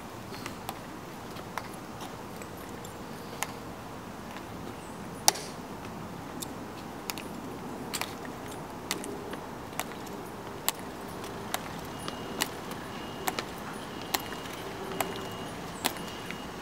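Honor guard soldiers' hard heels, fitted with metal taps, clicking on the stone plaza as they march. A few scattered clicks come first, then a steady step about every second from around the middle, over a faint steady hum.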